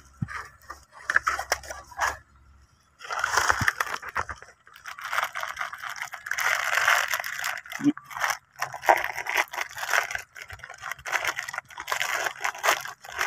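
Crinkling and rustling of a plastic snack packet being handled against a bamboo stalk, with many short sharp clicks; it grows much louder about three seconds in and keeps on in uneven bursts.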